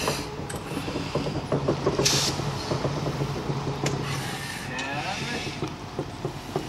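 U.S. Plywood Corp. 2-6-6-2 steam locomotive No. 11 rolling slowly without steam, moved by a diesel locomotive: its wheels and running gear knock and clank over and over, under the steady low drone of the diesel. A short hiss comes about two seconds in and a falling metal squeal about five seconds in.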